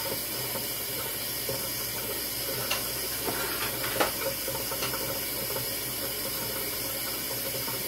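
Kitchen faucet running steadily, its stream splashing into a plastic dishpan of water in a stainless steel sink. A few light clicks come about halfway through.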